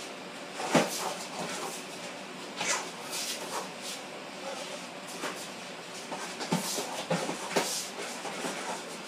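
Scattered thumps and scuffs from two people sparring: punches and clinch contact, with bare feet shuffling on a concrete floor. The sharpest thump comes about a second in, and several more follow irregularly.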